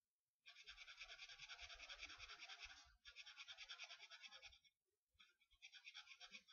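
Marker tip scratching rapidly back and forth on paper while colouring in a small area, in three spells: a brief break about three seconds in, and a pause of about a second near the five-second mark.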